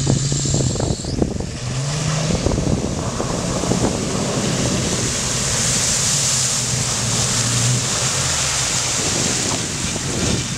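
Jeep Wrangler engine pulling hard through a river crossing, its note rising a few times, while water sprays and rushes around the wheels, loudest in the middle. Wind buffets the microphone.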